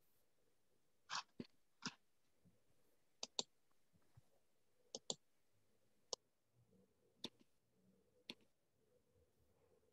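Faint, sharp clicks over near silence, about ten of them at irregular intervals, several in quick pairs.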